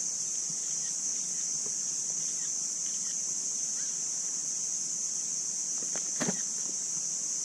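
A steady, high-pitched insect chorus, with one brief sound about six seconds in.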